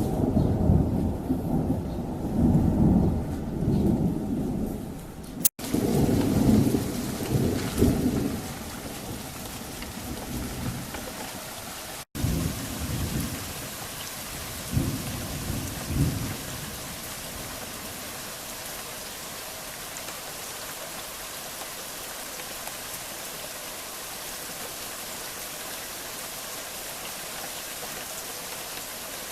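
Thunder rolling in heavy low rumbles during the first half, over falling rain. Two brief dropouts break it, then a few shorter rumbles come and fade, leaving steady rain falling on surfaces.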